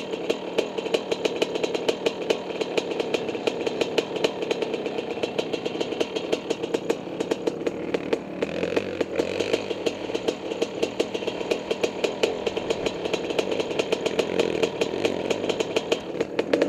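Honda CR500 dirt bike's single-cylinder two-stroke engine running at low revs with a steady rapid popping, heard close up from the rider's helmet.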